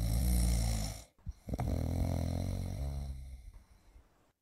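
A man snoring through his open mouth: two long snores, the first about a second long, the second longer and fading away.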